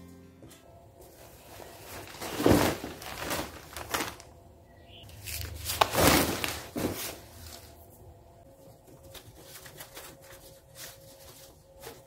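Plastic shopping bags rustling and crinkling as they are handled and folded, in two louder bursts a few seconds apart, then lighter crackling.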